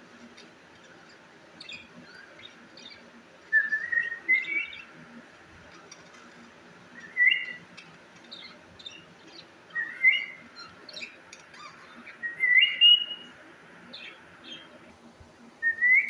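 Pet budgerigars and cockatiels calling: a loud, short, rising whistled call every two to three seconds, with soft chirping between.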